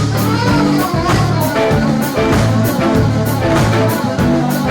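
Live gaucho dance band playing an instrumental stretch of a song, with bass, guitar and drum kit over a steady dance beat.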